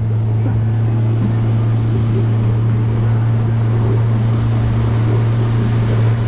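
Outboard motor running at steady speed as the boat moves across open water: a constant low drone over the rush of wind and water.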